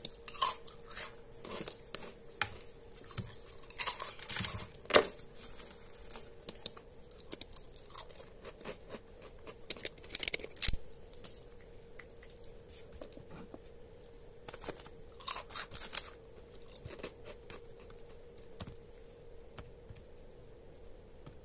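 Scattered sharp clicks of a computer mouse and short bursts of rustling from hands working at a desk, over a faint steady hum.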